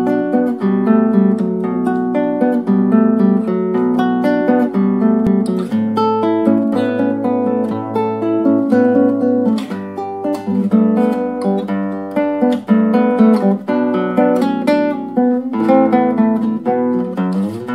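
Instrumental ringtone tune played on acoustic guitar: a continuous melody of plucked notes over chords.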